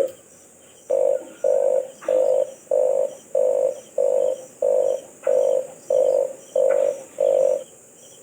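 Red collared dove calling: about a dozen short, low coos in an even series, roughly two a second, stopping near the end. Insects trill steadily behind.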